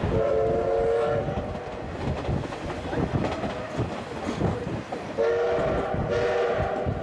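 C11 steam locomotive's whistle sounding two blasts about five seconds apart, the second longer, over the rumble and clickety-clack of the coach wheels on the rail joints.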